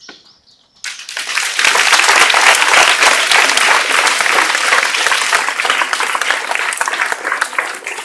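Audience applauding: the clapping starts suddenly about a second in, swells, then slowly thins out.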